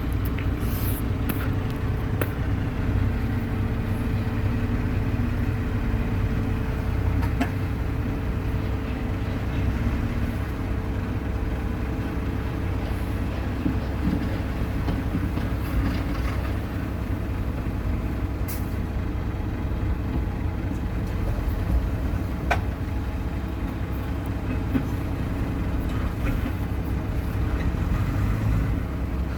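A vehicle engine running steadily, its sound strongest at the low end, with a steady higher tone over the first half that fades out about halfway through.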